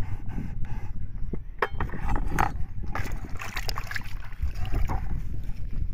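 A baby sucking and gnawing on a slice of ripe mango: wet slurping and smacking mouth sounds with many small clicks, over a steady low rumble.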